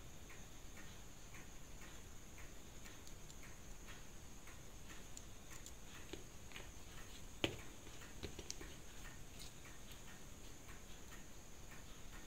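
A clock ticking steadily, about two ticks a second. About seven and a half seconds in, one sharp click of steel tweezers on the watch movement, followed by a few lighter clicks.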